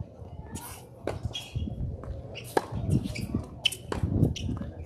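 Tennis ball struck by racquets in a rally on a hard court: sharp pops about a second apart, over a low background rumble.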